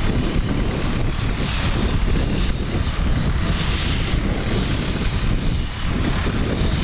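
Tractor engine running steadily, a loud continuous drone.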